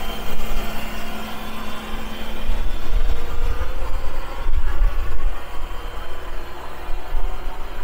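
Early Cummins diesel engine of a restored Linn half-track tractor truck running, with an uneven low rumble.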